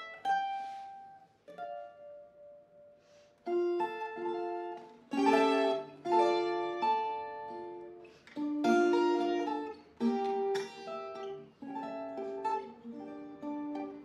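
Colombian bandola and tiple duet playing a bambuco. A few sparse plucked notes ring out over the first three seconds, then from about three and a half seconds in both instruments play together, with plucked chords under a melody.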